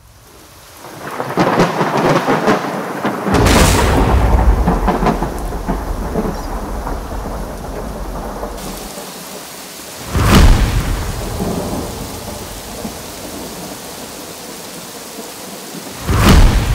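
Thunderstorm: steady rain with thunder, a long rolling peal building from about a second in, then sharp cracks that die away about ten seconds in and again near the end.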